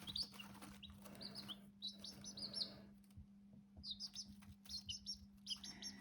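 Several newly hatched chicks peeping: short, high, falling whistles in quick clusters, with a brief lull about three seconds in.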